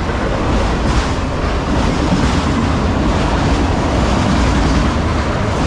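Autorack cars of a freight train rolling past at track speed: a loud, steady rumble and rattle of steel wheels on the rails.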